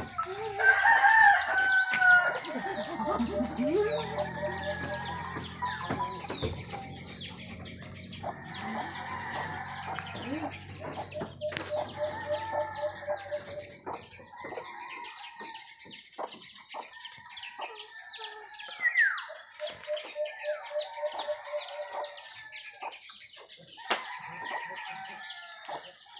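A rooster crows loudly about a second in, followed by chickens clucking, over a constant rapid high chirping.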